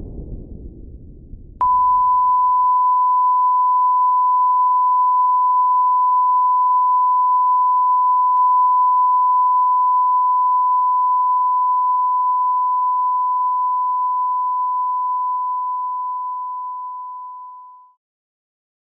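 A low rumble dies away, then a single steady high-pitched electronic tone cuts in abruptly and holds at one pitch for about fifteen seconds before fading out.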